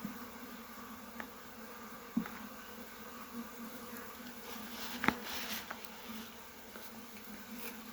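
Honeybee colony buzzing steadily in an opened hive, a low even hum. A few sharp clicks or knocks from handling the hive cut through it, the loudest about five seconds in.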